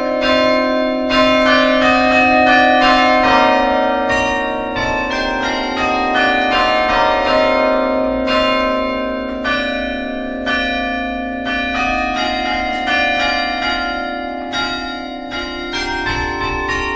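Church bells ringing: a quick, even run of strikes, about two or three a second, each bell ringing on over the next.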